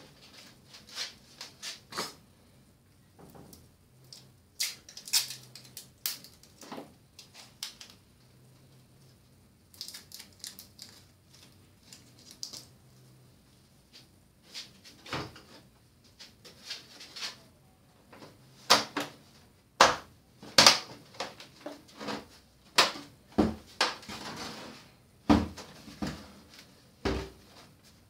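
Irregular clicks, taps and light rattles of hands handling a disassembled LED TV: its metal-backed panel, main board and wiring. The sounds grow denser and louder in the second half, with a few dull knocks near the end as the panel is lifted.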